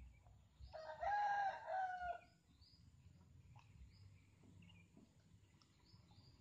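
A rooster crowing once, about a second in, for roughly a second and a half. Faint bird chirps follow.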